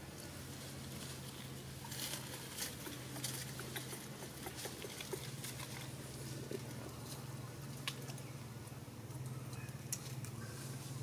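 Scattered light crackles and rustles of dry leaves and vines as a baby macaque moves about, over a steady low hum.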